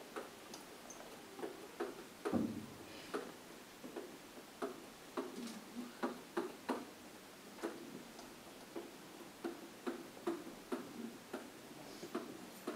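Stylus tapping and clicking against an interactive whiteboard as letters are written, in short irregular clicks with a louder, duller knock about two seconds in.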